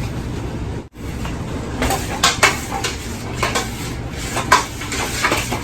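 A metal spoon clinking and scraping against a cooking pot in irregular knocks, as the sauce with meatballs is stirred. The sound cuts out briefly about a second in.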